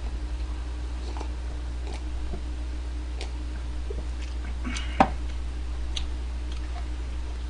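A man drinking from a cup close to the microphone, with soft wet mouth and swallowing sounds and small clicks. About five seconds in, one sharp knock as the cup is set down on the table. A steady low electrical hum runs underneath.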